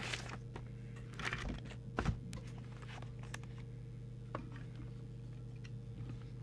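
Steady low electrical hum on the repair bench, with a few short clicks and knocks from handling the CB radio, the loudest about two seconds in.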